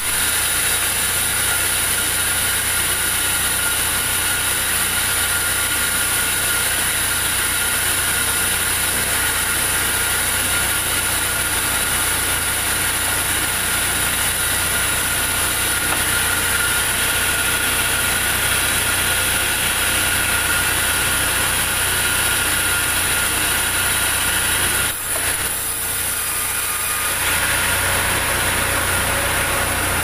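Large sawmill band saw running steadily: a high whine over a low hum, with a short dip about 25 seconds in.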